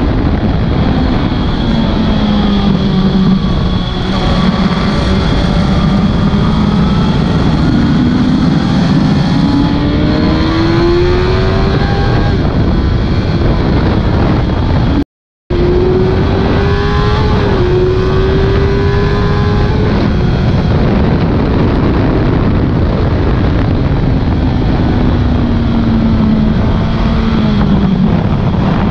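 Suzuki GSX-R 1000 K6's inline-four engine heard onboard under heavy wind rush, revving up through the gears with its pitch climbing and dropping back at each shift, then falling as it slows near the end. The sound cuts out for a split second about halfway through.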